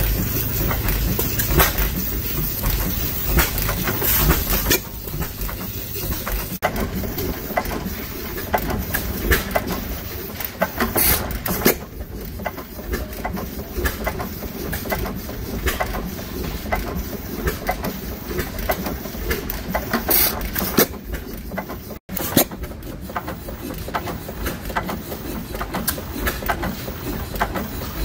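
Associated Six Mule Team single-cylinder hit-and-miss gas engine running, with sharp knocks and clicks from its firing and valve gear at uneven spacing, a few much louder than the rest.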